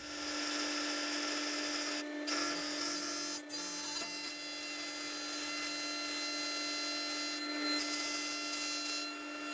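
SawStop table saw spinning a Diablo dado stack, running together with the shop dust collector: a steady whine with a strong hum that starts right at the beginning. The stack is being raised up through a new zero-clearance insert, cutting its own slot in it.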